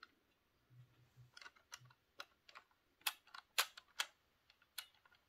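Faint, scattered small clicks and taps of fingers handling a plastic model railway baggage car, with two sharper clicks around the middle.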